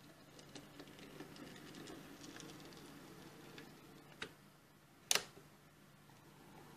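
H0e-scale model steam locomotive running along narrow-gauge track: a faint motor hum that swells and then fades as it moves off, with light ticking of the wheels on the rails. A sharp click about four seconds in and a louder one about a second later.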